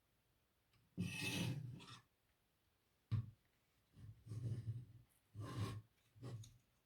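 Plastic Lego pieces being handled and fitted together: short bursts of rubbing and rattling, with a sharp click about three seconds in.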